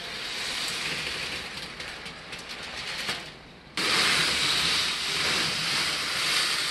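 Trains of a homemade wooden model roller coaster rolling along the track, a steady rattling rush of wheels. It eases off about three seconds in, then comes back suddenly louder just before four seconds as a train runs close by.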